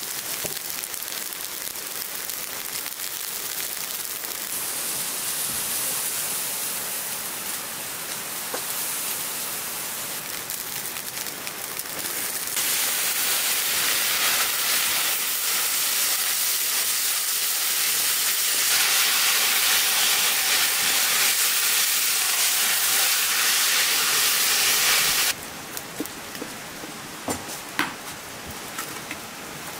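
Chopped onions and ground meat sizzling as they fry in a pot and are stirred with a wooden spatula; the sizzle jumps louder about twelve seconds in. It cuts off suddenly near the end, leaving a few sharp clicks and knocks as wood is pushed into the fire.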